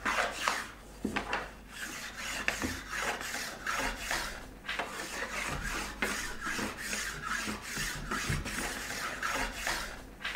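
Hand sanding along the edges and corners of a planed wooden stick to ease them over, in a quick run of short back-and-forth strokes.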